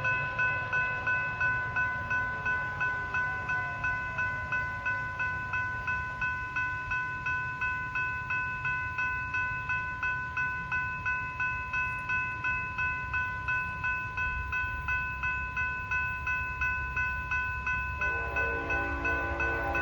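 Railroad grade-crossing bell ringing steadily, about two strokes a second. A train's low rumble builds about three-quarters of the way in, and a locomotive horn sounds near the end as the Norfolk Southern manifest train reaches the crossing.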